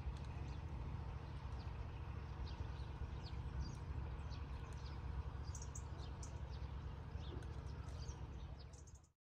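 Small birds chirping repeatedly over a steady low rumble of wind on the microphone. The sound fades out quickly near the end.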